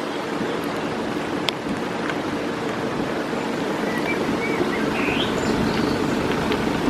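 Steady rush of floodwater mixed with the low hum of a vehicle engine, growing slowly louder, with birds chirping a few times.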